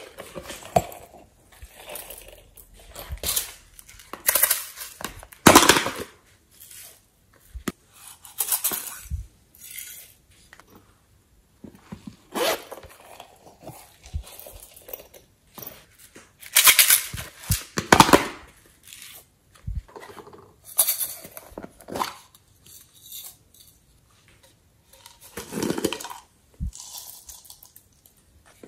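Irregular rustling, crinkling and tapping of plastic packets, cases and a shaker bottle being handled, squeezed and shaken, with glitter and sequins falling into a glass dish of clear slime. The sounds come in separate short bursts with a few sharp clicks among them.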